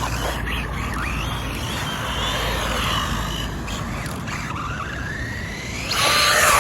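Rlaarlo ROG1 RC car's electric motor whining as it is driven, the pitch rising and falling with the throttle, over a steady low rumble. Toward the end the whine climbs in one long rise, then a louder burst of noise sets in.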